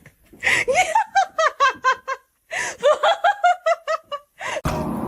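A person laughing in two bouts of quick, high-pitched 'ha-ha-ha' syllables, about five a second. A steady noisy rush starts abruptly near the end.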